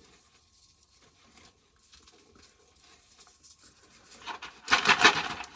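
Dry corn husk and silk rustling and tearing as they are pulled off an ear of corn by hand. Faint scratching at first, then a loud rustling burst near the end.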